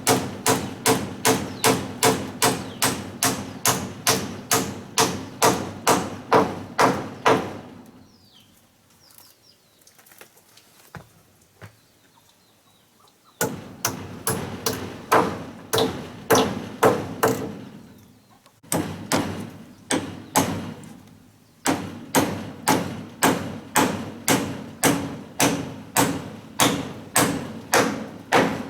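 Steady, ringing strikes on wood, about three a second, in runs of several seconds broken by pauses, one of them several seconds long.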